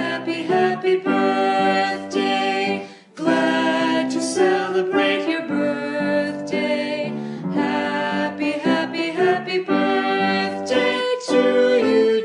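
Background music with a clear melody of held notes, breaking off briefly about three seconds in.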